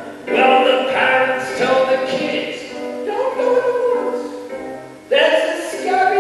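Live acoustic song: a man singing long held notes in phrases over acoustic guitar.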